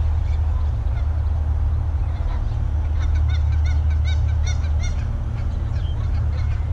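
Steady low rumble of wind buffeting the microphone. About halfway through, a bird gives a quick run of about eight short calls, about four a second, for two seconds.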